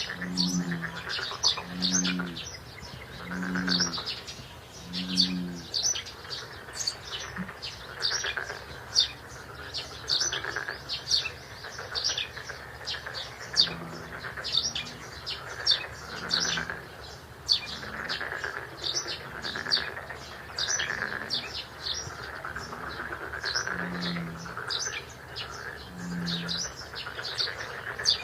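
Birds chirping in quick, repeated short notes. A lower pitched call repeats about every second and a half at the start and again after the middle.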